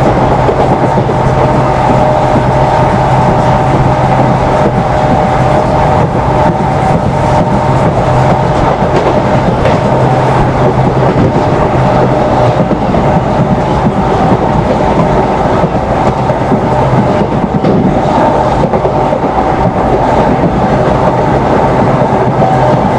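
EMD WDP4D diesel locomotive running at speed through a station, its two-stroke engine giving a steady hum with a steady higher whine, over the running noise of the coaches on the track.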